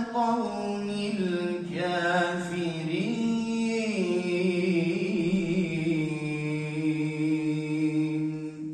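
A man's melodic Quran recitation, one long phrase sung in a single breath: ornamented turns of pitch at first, then a long steady held note that stops just before the end.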